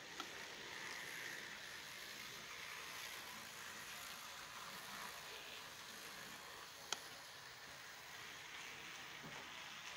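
Model train rolling past close by: a faint, steady running hiss of the wheels and locomotive motors, with two sharp clicks, one at the start and one about seven seconds in.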